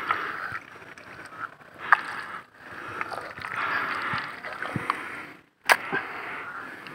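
Gloved hands digging and scooping through thick wet mud, squelching and sloshing, to get at a crab sheltering under a log. Sharp clicks come through about two seconds in and near the end.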